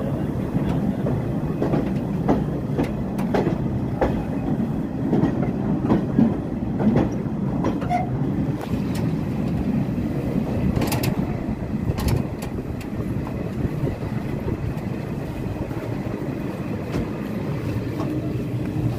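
Doon Express passenger train heard from inside a coach, rolling slowly into the station with a low rumble and irregular clacks and knocks from the wheels over rail joints and points. The clacks come thickest in the first half and thin out later.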